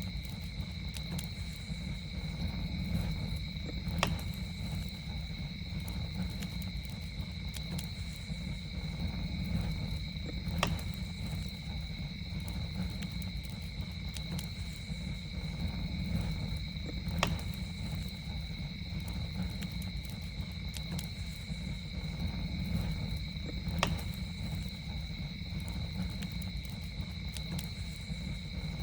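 Campfire crackling over a steady low rumble, with faint ticks and four louder sharp pops about every six and a half seconds. A steady high insect trill runs throughout.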